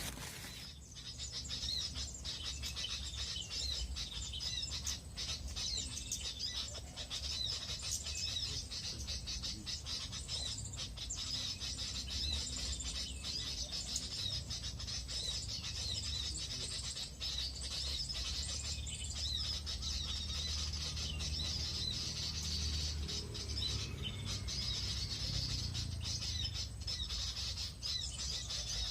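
Small birds chirping and calling without a break, with many short high notes repeated over and over, and a low rumble underneath.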